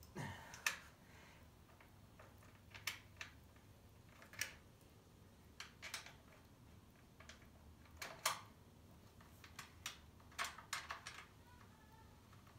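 Scattered light clicks and taps from hands handling and turning parts of a Honda HRX217 lawnmower's handle controls, irregular and a second or two apart.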